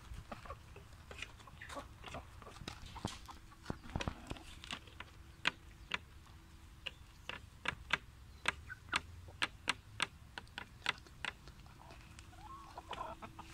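Rooster pecking into a plastic tray on a wooden crate: a run of sharp beak taps, coming about two to three a second in the second half, with a soft cluck near the end.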